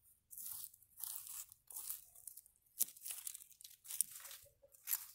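Weeds being pulled by hand from soil by their roots: a run of short crunching, tearing scrapes of roots and dirt, with a few sharper snaps.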